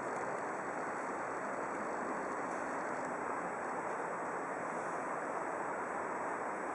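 Steady rushing outdoor noise with no separate events, the ambience over the flooded river, with a faint steady high tone above it.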